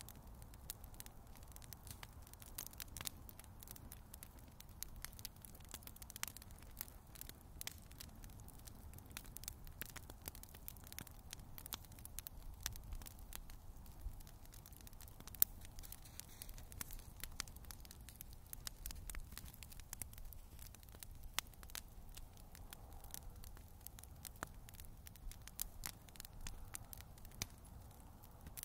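Bonfire crackling, with irregular sharp pops and snaps throughout, over a faint low rumble.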